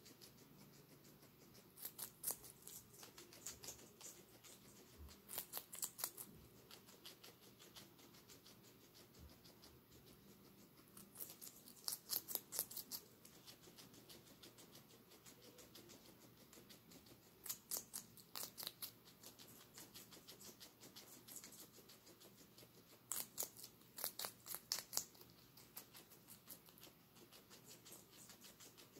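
Guinea pig crunching a piece of green bell pepper: five short bouts of rapid crisp chewing clicks, a few seconds apart.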